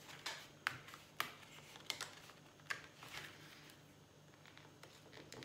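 Light paper handling: a few sharp, irregular clicks and soft rustles as a cut-out paper butterfly is slowly eased free of the printed sheet, the clicks mostly in the first three seconds.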